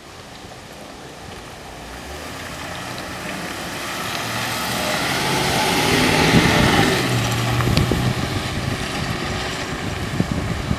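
Chevrolet/Crestline ambulance driving past, its engine and tyres growing louder as it approaches. It is loudest about six seconds in as it passes close by, then fades as it pulls away. No siren is sounding.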